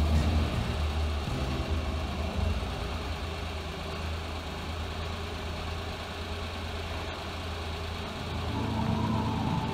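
An engine running steadily at idle with a deep low drone. It eases a little in the middle and grows louder again near the end.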